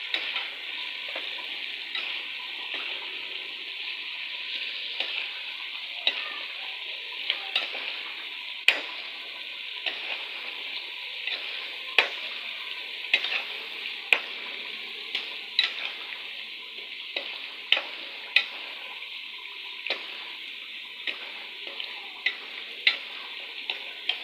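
Chicken and potato pieces frying in hot ghee in a steel pot with freshly added spices, sizzling steadily, while a metal spoon stirs them with irregular sharp clicks and scrapes against the pot.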